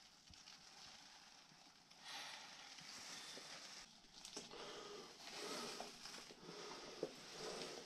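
A caver breathing close to the camera microphone, a few slow breaths each lasting about two seconds and starting about two seconds in, with a single small click near the end.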